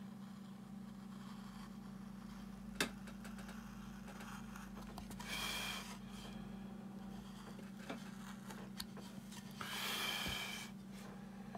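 Hand wood-carving skew chisel (an angled chisel with a bevelled edge) cutting into wood: two short scraping cuts, about five and ten seconds in, and a sharp tick near three seconds, over a steady low hum.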